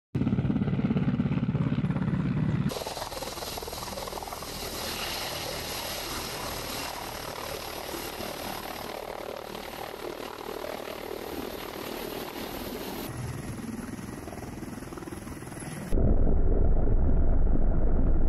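Mi-28N attack helicopter running, its rotor and turbine engines heard in several spliced shots that change abruptly. A thin high turbine whine runs through the middle. The last two seconds are a much louder low rumble, heard close to the airframe in low flight.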